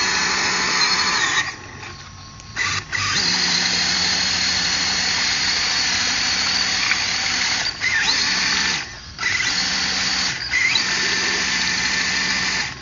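Electric motor and gearbox of a scale RC crawler truck whining steadily under throttle as it works through deep mud. The whine cuts out for about a second and a half early on and briefly twice more near the end as the throttle is let off.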